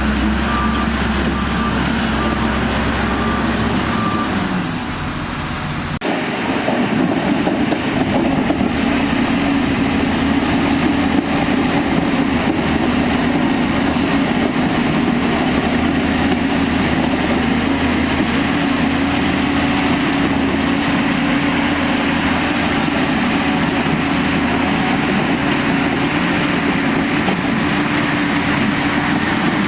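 Diesel engine of heavy earthmoving equipment running steadily under work. A repeating beep sounds in the first few seconds. About six seconds in, the sound changes abruptly to a different, steady engine note.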